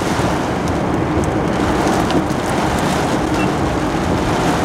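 Heavy rain beating on a car's roof and windows, heard from inside the cabin as a loud, steady rush with faint sharp ticks of drops striking.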